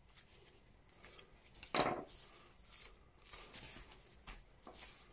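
Faint handling sounds of raw venison muscles being pulled apart by hand along their natural seam on a wooden butcher's block. There is a soft knock a little under two seconds in, then scattered small rustles and ticks.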